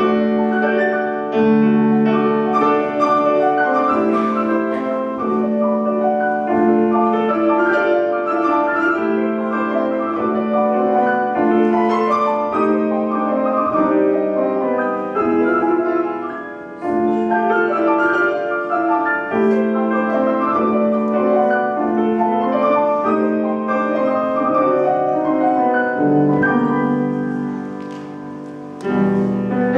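Piano duet, four hands on one grand piano, playing classical music over a recurring low held note. The playing eases briefly about seventeen seconds in, and turns quieter near the end before coming back loud.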